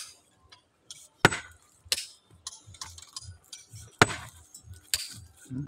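A hand-held steel tool striking a boulder to split it: four sharp, ringing blows of metal on stone, coming unevenly, two close together and then two more a couple of seconds later.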